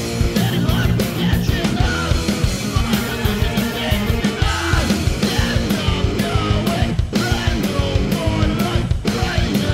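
Loud hardcore punk music: distorted electric guitars and bass over steady, dense drumming.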